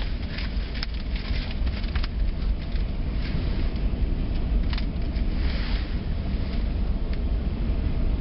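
Freight cars rolling past on the rails: a steady low rumble with scattered sharp clicks from the wheels, heard through the windows of a car.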